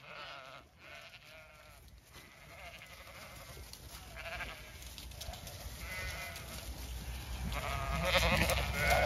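Zwartbles ewes bleating several times as the flock runs in, with a low rumble building toward the end.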